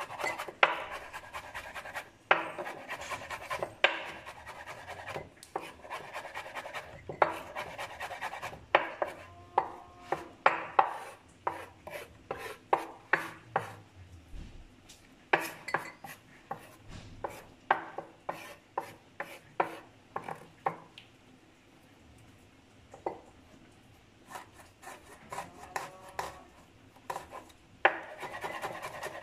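Chef's knife mincing onion on a wooden cutting board: runs of quick, irregular knocks of the blade on the board, with scraping between runs and a short lull a little past the middle.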